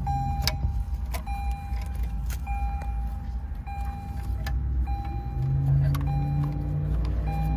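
Repeating electronic warning chime, one steady tone about every second and a quarter, over a steady low rumble, with sharp plastic clicks and rattles from wiring harness connectors being handled and plugged together.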